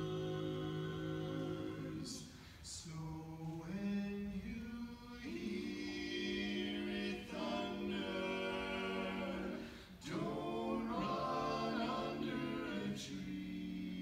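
Barbershop quartet of four men singing a cappella in close harmony, holding sustained chords, with short breaks between phrases about two seconds in and about ten seconds in.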